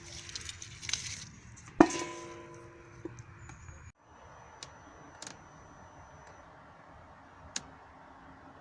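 A hard knock on metal about two seconds in, ringing briefly with several tones like a struck bucket. After that comes a faint steady hiss with a few light ticks.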